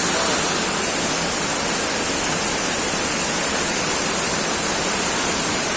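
Waterfall rushing steadily, a loud even roar of falling water with no breaks.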